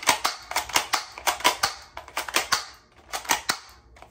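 Battery-powered gel blaster pistol firing in several short rapid bursts, a sharp clack from the blowback with each shot, as the magazine is emptied.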